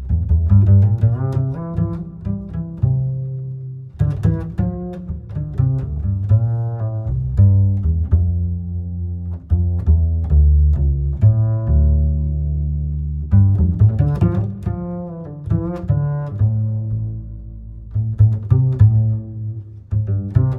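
Instrumental music with deep string notes, many of them plucked, over a strong bass line.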